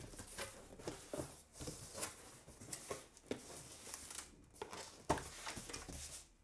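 A cardboard shipping box being opened by hand: flaps pulled apart and a loose cardboard sheet lifted, with irregular scraping, rustling and light knocks of cardboard. There is a sharper knock about five seconds in.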